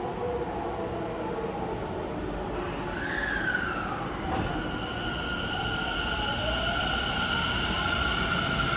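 Tobu 50050 series electric train pulling away from the platform. A hiss of air starts about two and a half seconds in. Then a steady electric whine from the traction drive begins and slowly rises in pitch as the train picks up speed.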